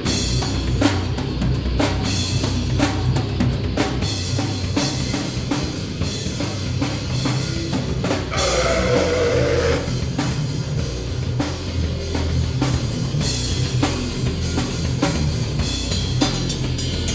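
Live band playing an instrumental passage, the drum kit driving it with bass drum, snare and cymbal hits over the rest of the band.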